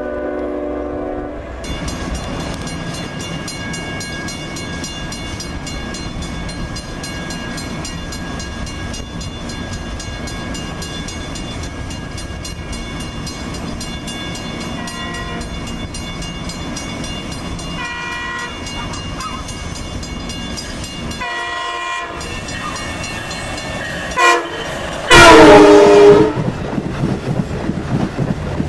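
Long Island Rail Road trains at a station platform: a horn blast ends about a second and a half in, then steady rail running noise with wheels clicking over the track. An approaching C3 cab-car push-pull train sounds its horn in the grade-crossing pattern, two longs, a short and a long, growing from moderate to very loud, with the last long blast the loudest sound. The train then rushes past close by.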